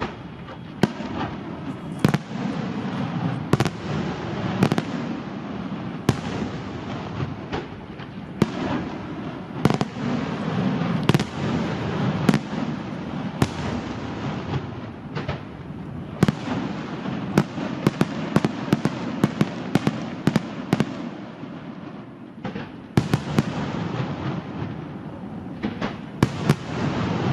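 Fireworks display: a continuous rumble and crackle of bursting shells, with many sharp bangs scattered irregularly throughout, several close together at times.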